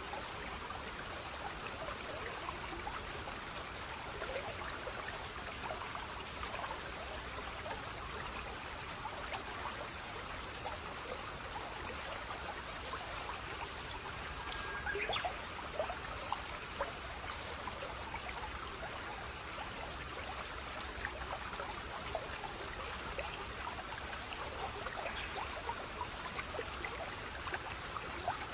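Water of a small stream trickling and babbling steadily, with small splashes throughout and a slightly louder splash about halfway through.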